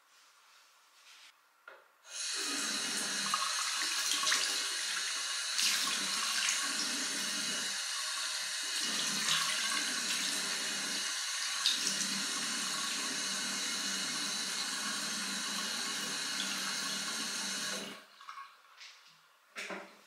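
Bathroom sink tap turned on about two seconds in, water running steadily into the basin, broken by hands cupping and splashing water to wash a face, then turned off near the end.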